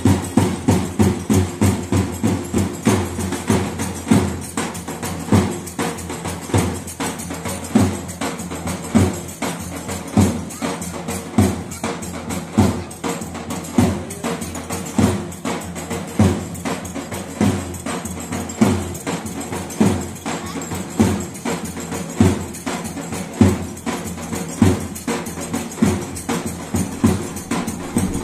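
Two davul drums, large double-headed bass drums, played with a heavy mallet and a thin stick in a steady dance rhythm: deep beats about one and a half times a second with quick, light stick strokes between them.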